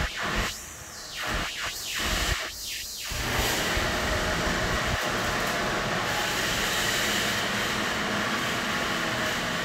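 Steady rushing hiss of water-bottling plant equipment. It drops out and returns a few times in the first three seconds, then runs evenly.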